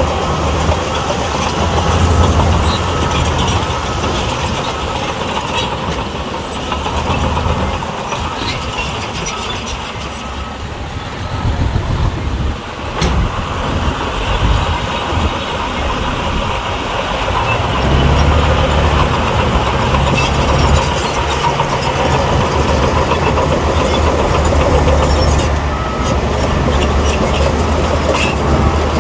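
Heavy diesel earthmoving machinery running continuously. The deep engine note eases off from about eight seconds in and comes back strongly at about eighteen seconds, as the machine works under load again.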